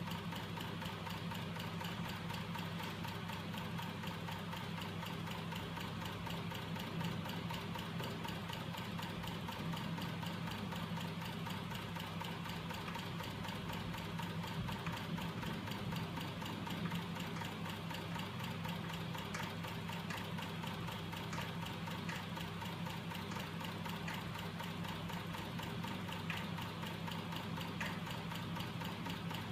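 Homemade magnet-coupled crankshaft mechanism running steadily, driven by a small electric motor: a steady motor hum with a fast, even mechanical clatter from the rocking linkage and cranks.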